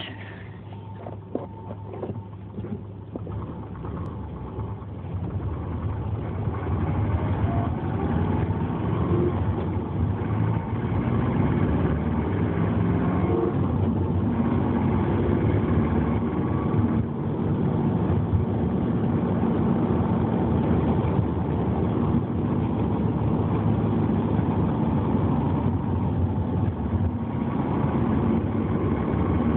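Subaru Legacy running and being driven, growing louder over the first several seconds and then holding steady, with faint whining tones that rise and fall. The owner reports a grinding from the drivetrain that comes with engine revs, not road speed, when decelerating in gear with the clutch engaged.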